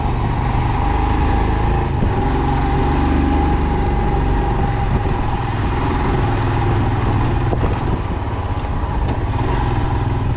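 Motorcycle riding along at a steady pace: the engine runs continuously under a steady low rumble of wind and road noise on the microphone, with a thin steady whine.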